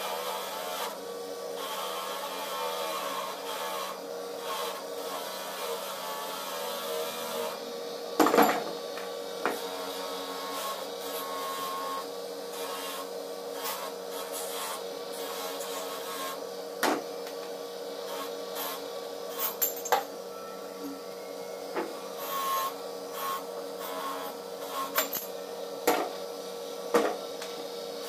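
Electric grinder running with a steady hum while small metal alternator parts, such as screws, are held against its spinning abrasive disc, giving a rough rubbing grind. Scattered sharp clicks and knocks come over it, the loudest about eight seconds in.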